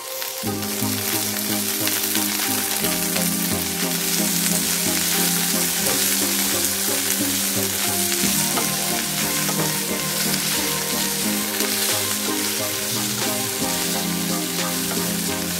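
Fresh green leaves sizzling as they fry in hot oil in a pan, stirred and turned with a wooden spatula.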